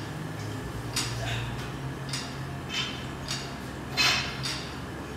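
Sharp metallic clinks of iron weight plates knocking on a plate-loaded curl bar during biceps curls, about half a dozen at uneven spacing, the loudest about four seconds in, over a steady low hum.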